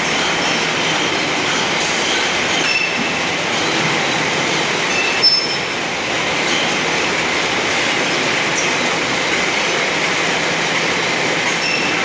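Robot palletizing line running: a steady mechanical din of roller conveyors and plastic crates, with scattered brief squeaks and one short sharp knock about five seconds in.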